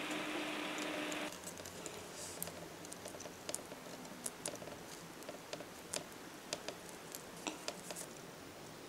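A steady hiss with a low hum cuts off suddenly about a second in. Then come faint, irregular small clicks and ticks from close work on a small amplifier circuit board as wires are held to it and soldered.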